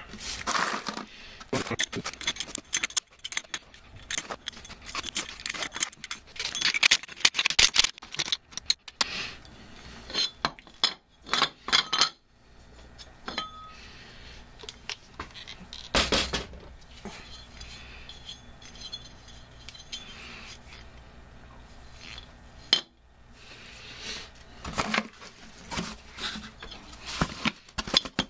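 Steel bolts, lock washers and nuts clinking against each other and against a pressed-steel idler pulley as they are fitted and tightened into its holes. Irregular sharp metallic clinks, thick at first, then sparser with a quieter stretch in the middle and a few more near the end.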